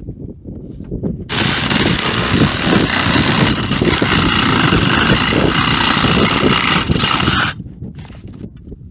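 A power saw cutting through a foundation post, a loud hissing cut that starts about a second in and stops abruptly about six seconds later as the post is cut off.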